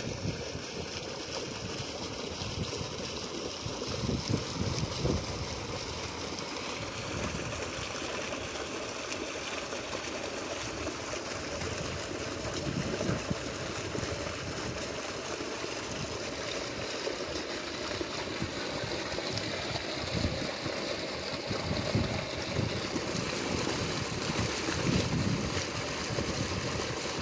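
Water gushing steadily from a tube well's large metal discharge pipe and splashing into a concrete tank.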